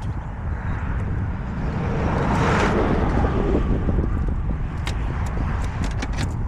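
A vehicle passing by, its noise swelling to a peak about midway and then fading, over a steady low rumble, with a few light clicks near the end.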